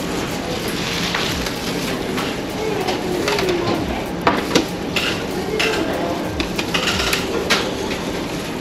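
Plates, trays and cutlery clinking and clattering at a self-service buffet counter: a scatter of sharp knocks of crockery, a few louder ones about halfway through and again near the end, over a steady background hum.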